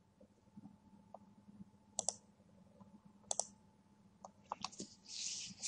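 Computer mouse button clicks: two sharp press-and-release clicks about a second and a half apart, then a few fainter ticks, and a short hiss near the end.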